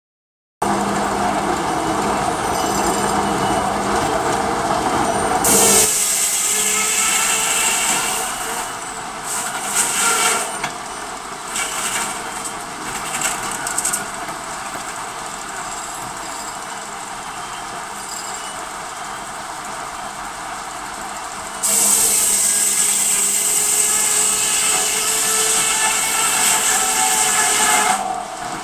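Sawmill running, its saw cutting through wood in two long stretches, about six seconds in and again from about twenty-two seconds. Between the cuts there is lower machinery noise with some knocking and clatter.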